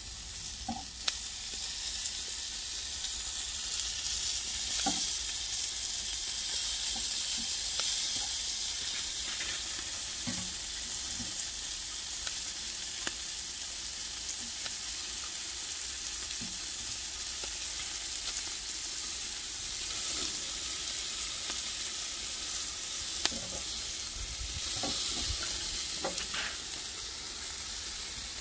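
Eel fillets sizzling on a charcoal grill, a steady hiss with a few light clicks of metal tongs and scissors against the grate.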